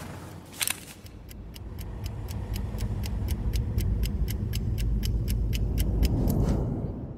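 Low rumble of a car engine that swells through the middle, under a rapid, even ticking of about five ticks a second, after a single sharp click about half a second in.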